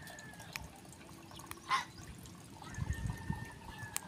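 Faint ticks and scratches of a thin metal skewer point boring into a raw eggshell, with a short scrape about a third of the way in and a few soft handling bumps near the middle.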